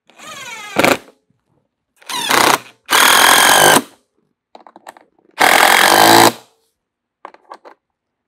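DeWalt 20V Max DCF787 cordless impact driver driving screws into a plastic seat shell, in four bursts. The first opens with a rising whine as the motor spins up, then comes a loud hit. Three loud hammering runs follow, each about half a second to a second long.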